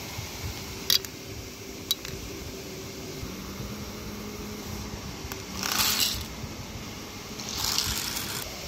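Two sharp clinks, then chana dal being stirred in a steel bowl: two short rattling swishes, about six and eight seconds in.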